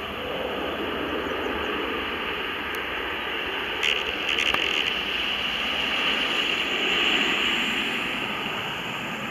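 Boeing 787's jet engines at takeoff thrust during its takeoff roll: a steady roar whose hiss swells about seven seconds in and eases near the end. A couple of brief clicks sound about four seconds in.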